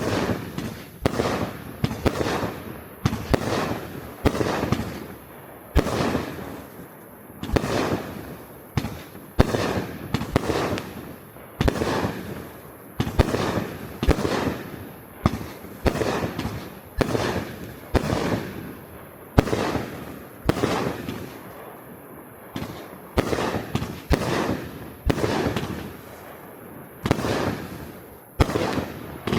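A 25-shot consumer fireworks cake (Jisan 'For Freedom') firing shot after shot, roughly one a second, each a sharp bang followed by a fading tail from the glittery red, white and blue breaks.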